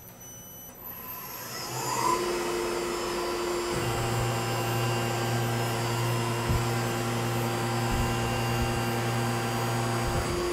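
Tormach PCNC 1100 mill spindle spinning up with a rising whine, then running steadily with a spot drill. A low steady hum joins at about four seconds.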